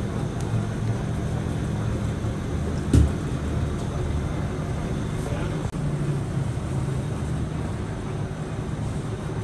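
Steady low mechanical hum of bakery equipment, with one sharp knock about three seconds in.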